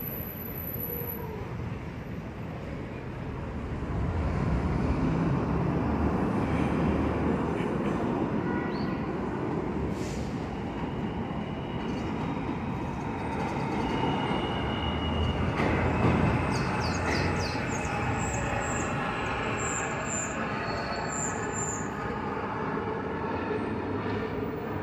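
New York City subway train running along the track, its rumble growing louder about four seconds in, with short high-pitched wheel squeals scattered through the second half.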